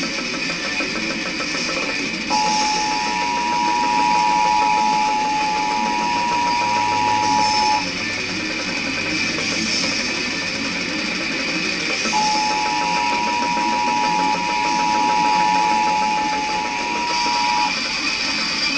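Emergency Alert System two-tone attention signal. It sounds for about five seconds, breaks off, then sounds again for about five more seconds over steady guitar background music. The tone is choking, cutting out early instead of running as one continuous alert.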